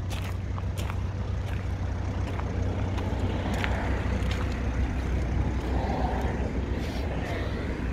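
Footsteps crunching on gravel, about one step every half to one second for the first few seconds, over a steady low rumble.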